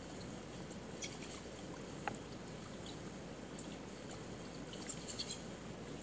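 Steady microphone hiss with a few faint, sharp clicks of a computer mouse and keyboard, about one and two seconds in and a small flurry near the end.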